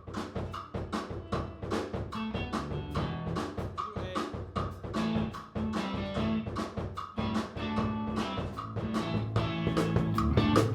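Live band jam led by a drum kit playing a steady groove of snare, rimshot and bass drum hits, with low held notes underneath; it grows louder toward the end.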